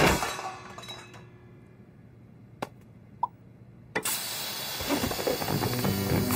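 Cartoon sound effects: a sharp impact at the start that fades away, two small clicks in the quiet that follows, then another hit about four seconds in that opens into a dense, noisy clatter with music coming in near the end.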